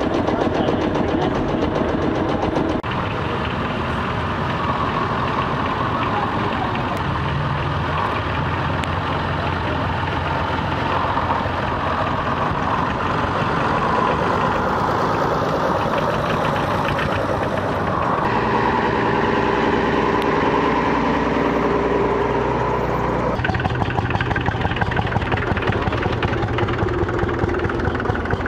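Vintage tractor engines running as tractors drive past one after another. First comes a Lanz Bulldog's single-cylinder engine, then other tractor diesels, and from about 23 seconds in a slow, even beat of single-cylinder engine strokes.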